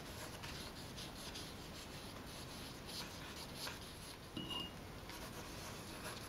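Paintbrush stroking and scratching faintly on thick paper, working wet water-soluble wax pastel colour. There is a short, light high-pitched ping about four and a half seconds in.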